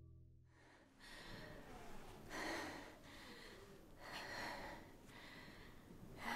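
A young woman breathing hard, with several deep breaths in and out a second or two apart, catching her breath after an effort. A music track fades out just before the breathing begins.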